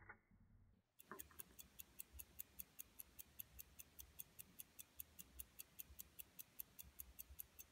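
Poljot Kirova deck watch's mechanical movement (calibre 53303) ticking. There are a few faint, muffled clicks first, and about a second in a steady, even ticking sets in at about five ticks a second.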